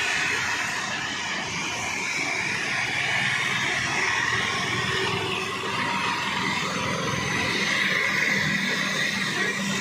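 Heavy rain pouring down steadily onto a flooded street. Near the end, a car's tyres swish through the standing water.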